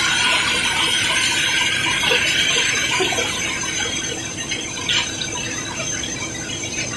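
Cobblestones pouring and clattering in a dense rush of small knocks as a barge is unloaded, with a high squealing edge that eases about halfway through.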